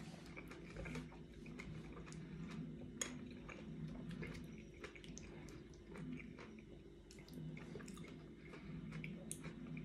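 Quiet chewing of soft, wet fruit salad, with many faint, scattered mouth clicks and the occasional light tap of a metal spoon in a ceramic bowl.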